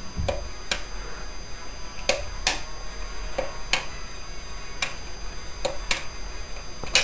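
Buttons on a landline telephone's keypad being pressed one at a time: about ten short clicks at irregular spacing.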